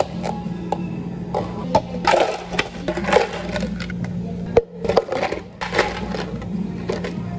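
A plastic dome lid pressed onto a cup, then ice cubes clattering and knocking in clear plastic cups as they are handled, in a string of irregular clicks over a steady low hum.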